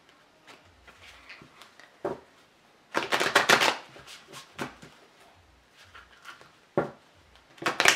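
A tarot deck being shuffled by hand: two short runs of rapid flicking card noise, about three seconds in and again near the end, with a few single light knocks and clicks between.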